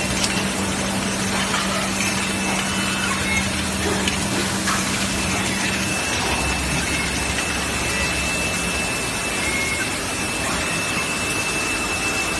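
Steady machinery noise of an automated assembly floor with industrial robot cells: an even hiss with a constant high whine, and a low hum that drops away about six seconds in.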